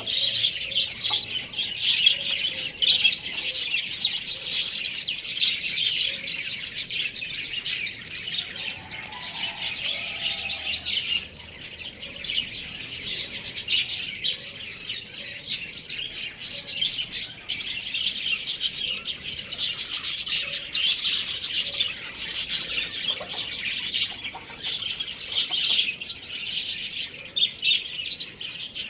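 Many small birds chirping and chattering at once, a dense, unbroken twittering with no rooster crow.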